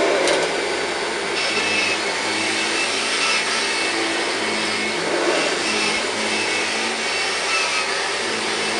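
1999 Kirby G5 upright vacuum cleaner running steadily while pushed across carpet, its motor tone wavering slightly up and down.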